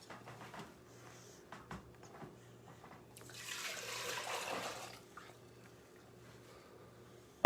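Eggnog mixture of egg and milk poured back into a saucepan: a steady pour lasting about two seconds, midway through, with a few light clicks before it.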